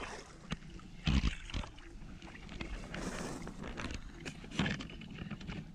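A knife hacking at shrub stems and wet mud: irregular snaps and knocks with leaf rustling, the loudest knock about a second in.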